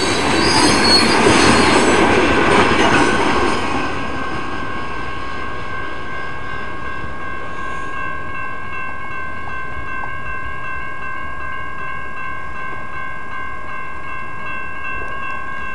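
Freight train cars rolling over a grade crossing, loud for the first few seconds and then dying away. Left behind are the crossing's warning bells, ringing steadily.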